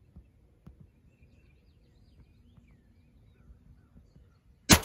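A single loud shotgun blast near the end, the shot at a wild turkey, after a few seconds of quiet with faint bird chirps.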